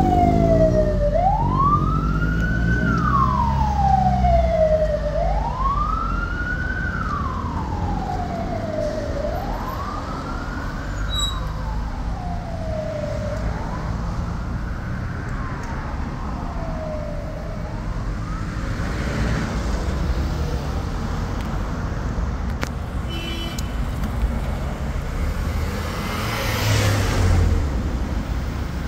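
Emergency vehicle siren wailing over steady low traffic rumble. Each wail climbs quickly and falls slowly, about every four seconds, and the siren fades away about two-thirds of the way through. Near the end there is a louder swell of traffic noise.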